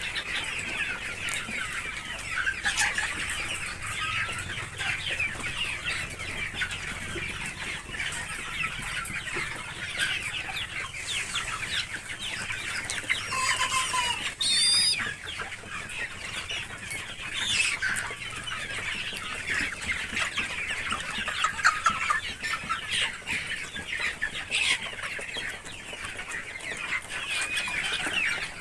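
A flock of chickens clucking and calling over one another in a continuous chatter, with a few high squeaky calls about halfway through.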